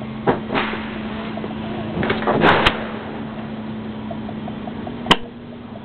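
A lighter being struck about two seconds in, a short rasp and two sharp clicks, over a steady low hum. Another sharp click comes near the end.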